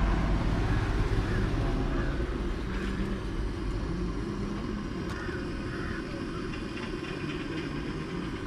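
Low engine rumble of a road vehicle running close by, slowly fading away.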